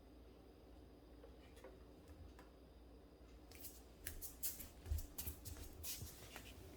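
Quiet room tone, then from about halfway through a quick run of small clicks and rustles.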